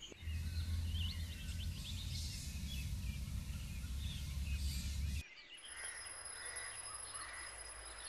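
Outdoor ambience with small birds chirping now and then over a low rumble that cuts off abruptly about five seconds in; after that it is quieter, with a faint steady high-pitched whine and a few more chirps.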